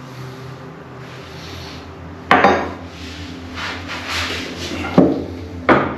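Chrome bath waste plug cap clacking against the acrylic tub as it is handled and set down by the plughole: three sharp clacks, one about two seconds in and two close together near the end, with some rubbing in between.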